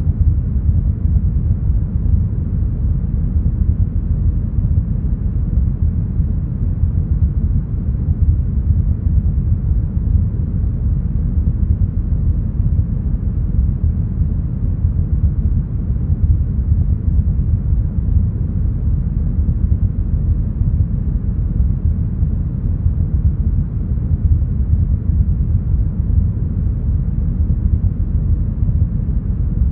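Deep, smoothed brown noise: a steady, even rumble with its weight in the bass and the highs filtered away.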